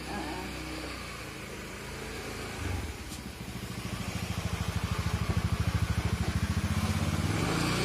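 A vehicle engine running nearby, with a rapid, even pulse, growing louder from about three seconds in and then holding steady.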